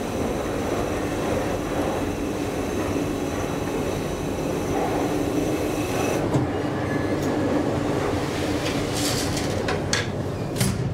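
1984 KONE inclined elevator car running along its sloping track, heard from inside the car as a steady rumble with a low hum. A faint high whine stops about six seconds in, and a few sharp clicks come near the end.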